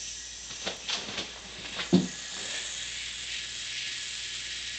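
888 ball-bearing yo-yo spinning (sleeping) on its string close to the microphone, a steady high whirring hiss from the bearing, with a few light clicks and one short knock about two seconds in. It is being held up to check for vibe (vibration), which the owner says it doesn't have.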